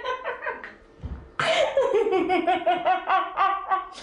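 A woman laughing: a short giggle at the start, then, about a second and a half in, a longer and louder run of rhythmic laughter pulsing several times a second.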